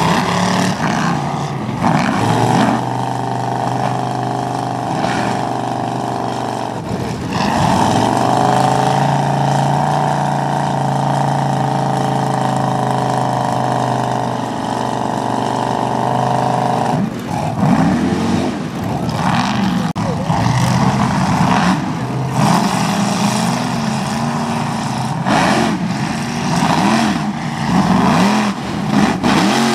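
Mud-bog truck engine running hard: held at high revs for about ten seconds, then revved up and down again and again.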